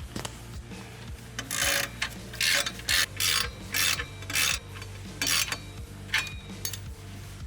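Hand ratchet wrench cranked in about eight quick strokes, each a short rasping ratchet buzz, working a fastener during an exhaust install.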